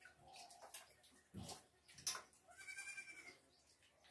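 A goat bleating faintly, one arching call about two and a half seconds in, with a few spoon clinks against steel bowls before it.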